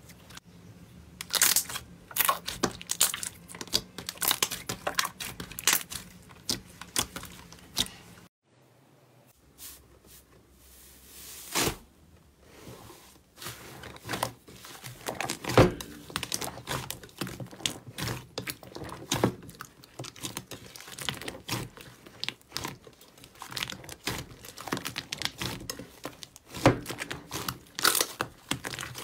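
Slime being handled by hand: clear pink slime stretched, then, after a brief near-silent gap about eight seconds in, thick green slime kneaded and squeezed in a glass bowl. Both give a dense, irregular run of sharp sticky pops and crackles.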